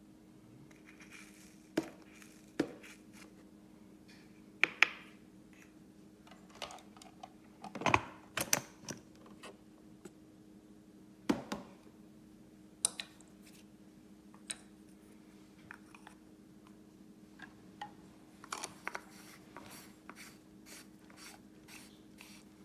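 Scattered clicks, knocks and light scrapes from objects being handled, coming at irregular intervals, the loudest about five and eight seconds in. A steady low hum runs underneath.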